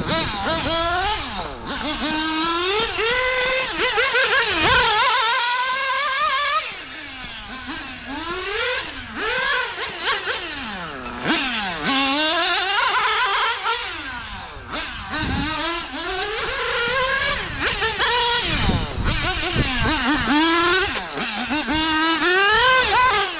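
Small nitro engine of a 1/8-scale GT RC car running hard around a track, its high, buzzing note climbing as it accelerates and dropping as it lifts off for corners, over and over.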